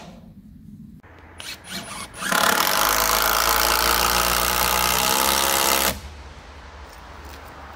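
Cordless drill-driver running steadily under load for about three and a half seconds as it drives a screw down through a wooden roof counter-batten, then cutting off sharply. A few brief clicks and whirrs come just before.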